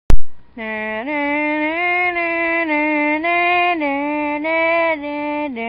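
A sharp click at the very start, then a simple intro tune: one melody line of long held notes stepping up and down in pitch.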